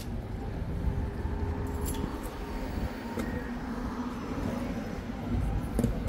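City street traffic: car engines running at low speed over a steady low rumble, with a few light clicks.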